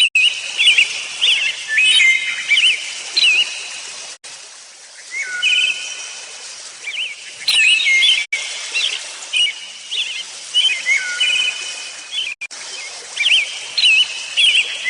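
A songbird singing repeated short phrases of clear whistled notes and quick warbling trills every few seconds, over a steady background hiss, with brief dropouts about every four seconds.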